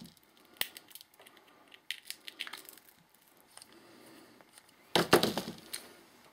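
Small hand tool clicking and scraping inside a metal bottle stopper, picking out its crusty old rubber seal: scattered light clicks, then a louder clatter of several knocks about five seconds in.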